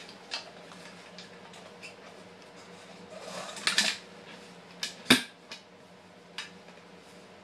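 Handling noises close to the microphone: scattered clicks, a rustling scrape about three and a half seconds in and a sharp knock about five seconds in, over a faint steady hum.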